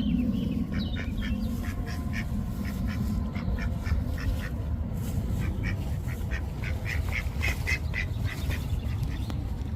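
Mallard ducks quacking repeatedly in quick runs of short calls, over a steady low rumble.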